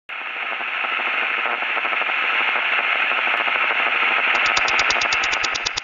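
Loud, steady hiss of static noise that starts abruptly. About four seconds in, a fast electronic pulse of roughly ten beats a second joins it, and the static then stops suddenly as the pulse carries on.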